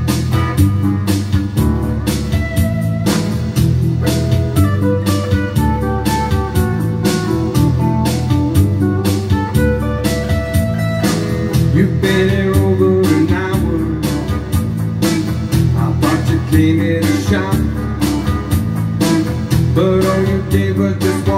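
Blues-rock song: electric guitar played over bass and a steady beat, with a man's singing voice coming in about halfway through.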